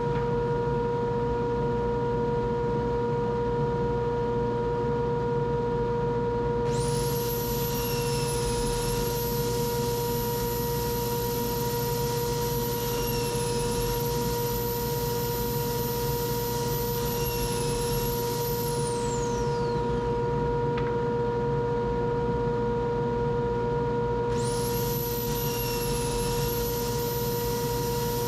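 Woodworking power tools running in a shop: a steady machine hum throughout, and over it a high-pitched motor whine that spins up about 7 s in, wavers in pitch as it works, winds down with a falling pitch around 19 s, and spins up again near the end.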